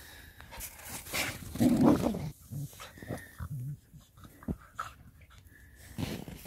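Two dogs play-fighting in snow: short growls amid the scuffle of their wrestling, loudest about two seconds in.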